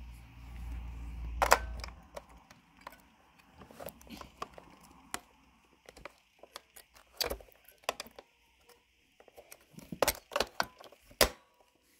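AA batteries being handled and pressed into the plastic battery compartment of a Nerf blaster: scattered clicks and knocks of the metal cells against plastic and the contact springs, the sharpest about a second and a half in and in the last two seconds. A low rumble of handling noise runs through the first two seconds.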